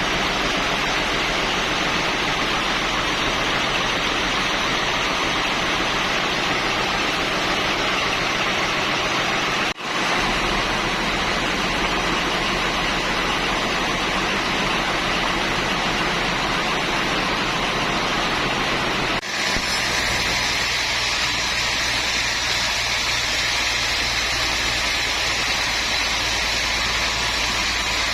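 Woodworking machinery running steadily, a continuous machine noise with a low hum. It drops out for an instant twice, about ten and nineteen seconds in, and is thinner after the second break.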